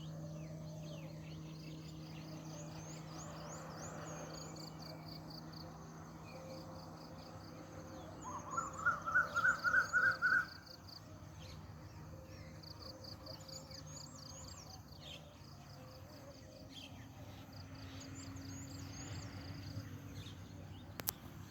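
Many birds chirping high and thin over a faint insect background. In the middle one loud call repeats about eight notes, each rising and climbing higher, for about two seconds. A low steady hum runs under the first half, and a single sharp click comes near the end.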